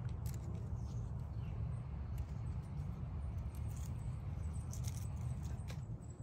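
Small scissors snipping arugula seedlings: a few light, scattered clicks over a steady low rumble.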